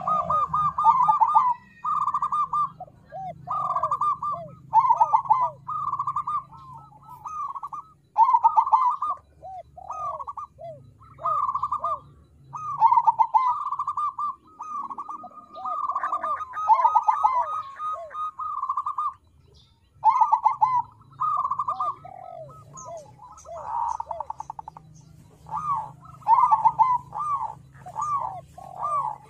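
Crossbred zebra dove (perkutut crossing) singing: phrase after phrase of rapid, rolling coos, each trailing into lower falling notes, with a short pause about two-thirds of the way through.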